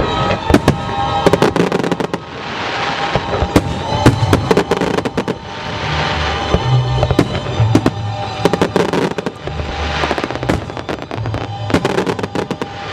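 Fireworks shells bursting in rapid clusters of sharp bangs and crackles, over the music that accompanies the pyromusical display.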